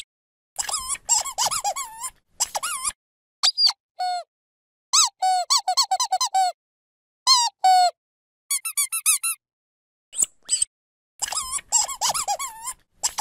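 Squeaky dog toy squeezed again and again: runs of quick, high squeaks, each bending up and down in pitch, in bursts of half a second to two seconds with short silences between.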